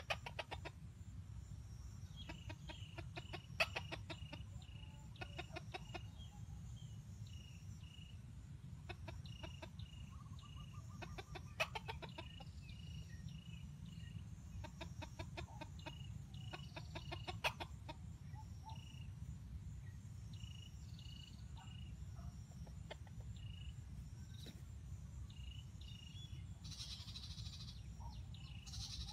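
Roosters clucking in quick runs of short notes, several times over, with a steady low rumble underneath.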